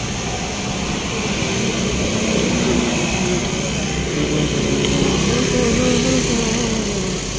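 Road traffic with motorcycles passing, mixed with people talking indistinctly.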